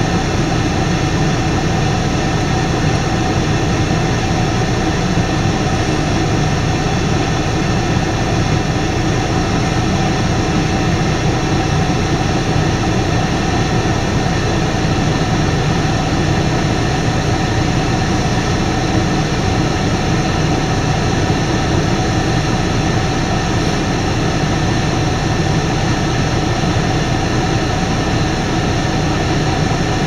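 Claas Lexion combine harvester running steadily under load while harvesting rapeseed: a low engine drone with several steady tones from the threshing machinery on top.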